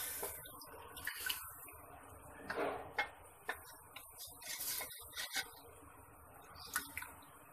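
Slotted wooden spatula stirring mutton and potatoes in a watery curry in an aluminium pot, knocking and scraping against the pot's sides at irregular moments.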